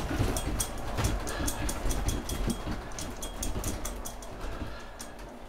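Rapid, uneven clicking and rattling of loose objects in a room over a low rumble, slowly fading: the building is still shaking in the earthquake.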